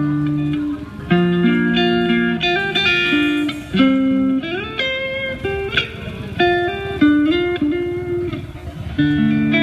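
Electric guitar played through a band's PA system at a sound check: held notes and chords changing every half second or so, with a few sliding changes of pitch.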